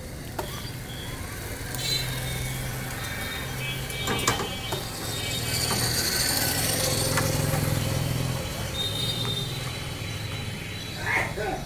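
A motor vehicle engine running close by, swelling to its loudest around the middle and then easing off, with a couple of sharp knocks.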